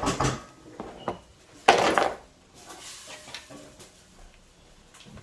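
Small hard items clattering as they are handled and set down, with one louder clatter about two seconds in, then lighter knocks and rustling.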